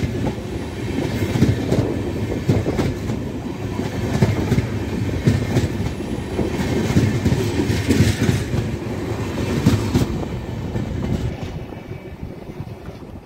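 Passenger coaches rolling past at speed, their wheels clattering over the rail joints. The sound fades over the last few seconds as the rear coach goes by.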